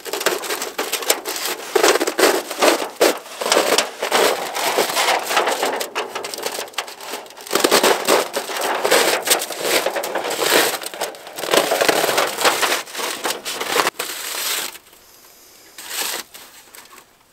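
Metal rings scraping and clicking as they are slid onto a rolled-up thin sheet-metal stove chimney, with crinkling of the sheet, in dense bursts that die down about fifteen seconds in.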